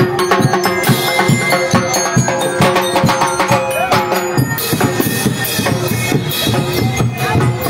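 Loud parade music with drums and percussion beating a steady rhythm.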